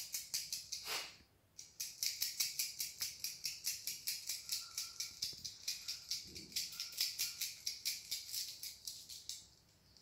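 Coins being shaken in a fast, steady rhythm, about six jingling shakes a second, with a brief pause about a second in.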